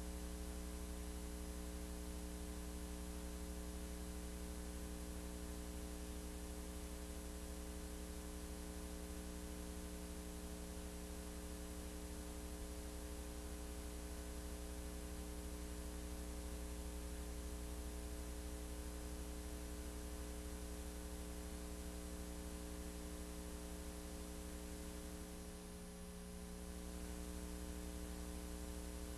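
Steady electrical mains hum with a layer of hiss, unchanging apart from a brief slight dip about 26 seconds in. No machine rhythm or clatter stands out.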